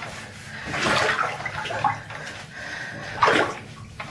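Water sloshing and splashing in a bathtub as a wet dog is lathered and rubbed by hand, with a burst of splashing about a second in and a sharper, louder splash just past three seconds.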